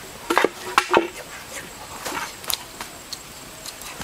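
A quick cluster of sharp knocks and clatter, then scattered faint clicks.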